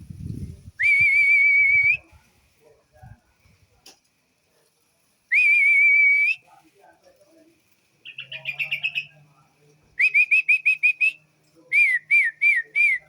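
A songbird's loud, clear whistles. Two warbling whistles of about a second each come first, then a quick run of notes, and near the end two series of short repeated whistles, the last ones falling in pitch.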